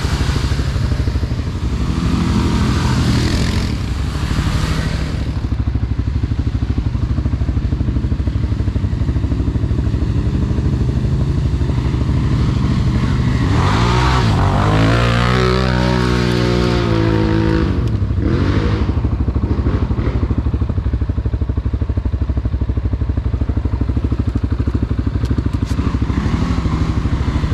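CFMoto CForce 600 ATV's single-cylinder engine running steadily, with one rise and fall in revs about halfway through.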